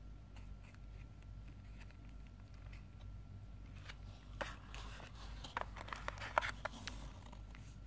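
Hands handling a clear plastic earphone case and the cardboard accessory tray of a phone box: a few faint ticks at first, then a dense run of crinkles, taps and rustles from about four seconds in until near the end.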